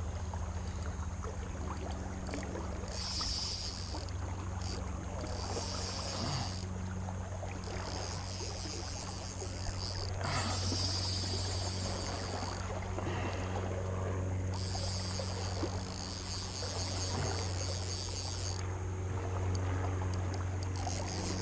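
Crickets trilling in stretches of a few seconds, several times, over a steady low rumble of the swollen creek's flowing water.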